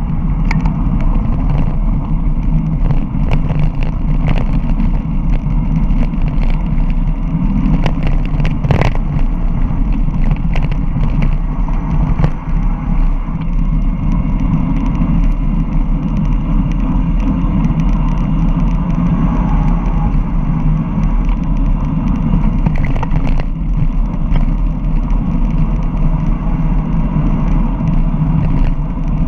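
Steady wind rumble on the camera microphone of a mountain bike descending at speed, with a few sharp knocks from the bike rattling over rough ground.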